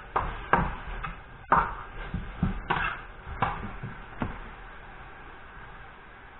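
A cooking utensil knocking and clinking against a frying pan, about eight sharp hits over the first four seconds, over a steady hiss from the pan of potatoes deep-frying; after the knocks only the hiss is left.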